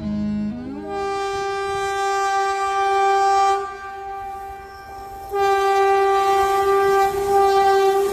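Train horn sounding two long, steady blasts. The first rises into its note about a second in, and the second starts a little past halfway through.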